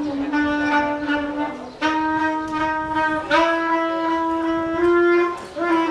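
Slow instrumental music of long held notes, moving to a new note every second or so.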